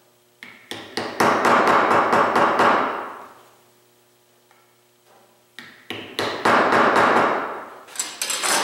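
Claw hammer tapping wooden pieces into a groove in a wooden frame: two runs of quick strikes, the first starting about half a second in and the second from about the middle to near the end, with a pause between.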